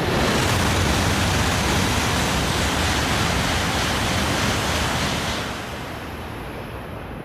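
Shinkansen bullet train passing through the station at high speed without stopping: a loud, steady rush of air and wheel noise that holds for about five seconds, then falls away as the train clears.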